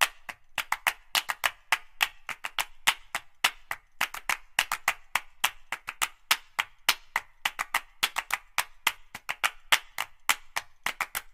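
Background music made of percussion alone: a fast, uneven pattern of dry, sharp clicks and claps with nothing under them.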